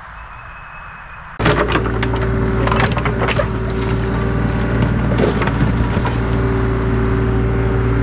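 Excavator engine running steadily under load, coming in abruptly about a second and a half in, while its bucket scrapes and knocks through soil as it digs a trench.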